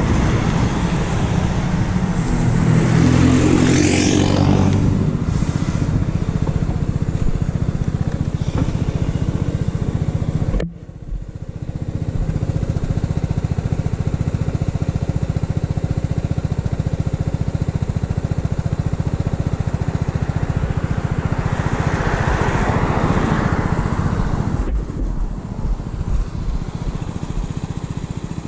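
Motor scooter engine running as the scooter slows to a stop, then idling steadily. A pickup truck passes close by in the first few seconds, and another vehicle swells past about twenty-two seconds in.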